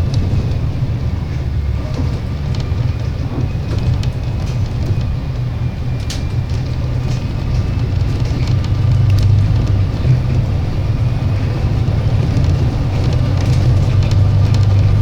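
Alexander Dennis Enviro 300 bus on a MAN chassis running: a steady low drone with occasional clicks and rattles.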